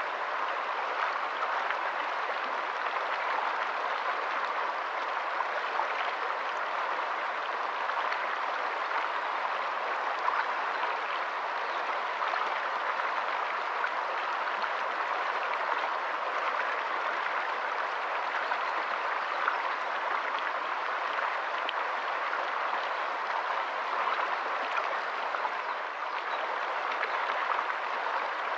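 Shallow rocky stream running over stones: a steady rush and babble of water, with small splashes flecking through it.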